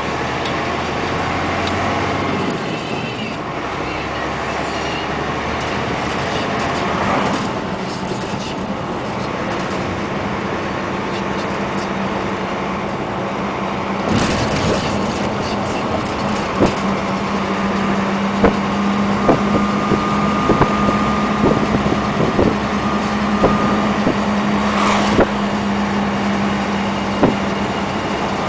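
UD Trucks Quon's diesel engine and road noise heard from inside the cab while driving, with a steady low engine drone. From about halfway on, irregular sharp clicks and knocks sound over the top, roughly one a second.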